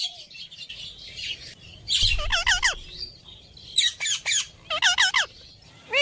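Indian ringneck parakeets squawking: clusters of quick, harsh screeches, each note arching up and down in pitch, starting about two seconds in and coming again near four and five seconds.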